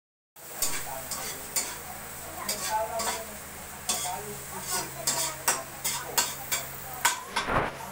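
A cooking utensil stirring and scraping food in a wok, with irregular sharp strokes against the pan about two a second, over the sizzle of food frying in hot oil. A short louder rush of noise comes near the end.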